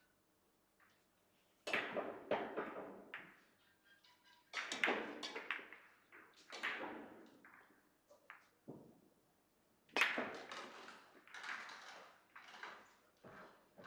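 Billiard balls clacking on the neighbouring tables of a large hall, in several short bursts of sharp clicks a few seconds apart, each ringing briefly in the room.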